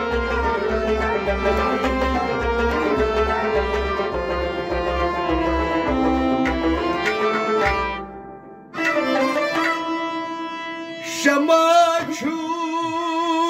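Instrumental passage of a Kashmiri folk song: a steady, evenly repeating drum beat under a melody line. The music thins out briefly about eight seconds in, then comes back with long held, wavering notes.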